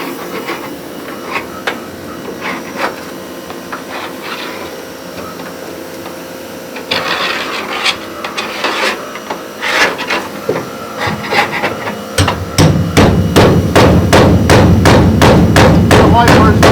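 Scattered scraping and tapping, then from about twelve seconds in a loud run of rapid, evenly spaced knocks, roughly three a second.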